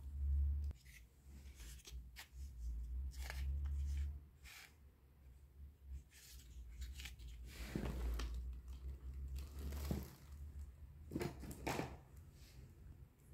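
Hard plastic toys handled and set down on a cloth-covered surface: scattered light clicks and taps, dull low handling bumps, and two longer scraping rustles in the second half.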